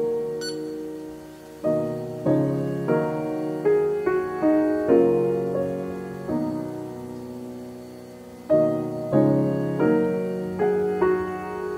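Background piano music: a slow run of single notes and chords that ring and fade, dropping quieter about a second in and again around eight seconds before new notes come in.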